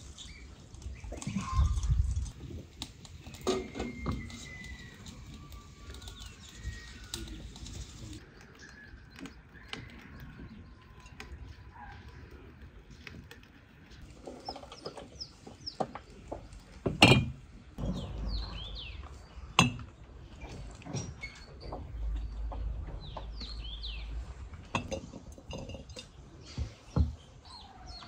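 Small birds chirping in quick short calls, thickest in the second half, with a few sharp knocks; the loudest knock comes about two-thirds of the way in.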